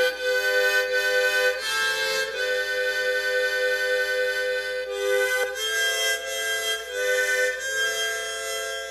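Instrumental introduction of a Mexican corrido by a mariachi ensemble: a melody of long held notes that change every second or so, with no singing.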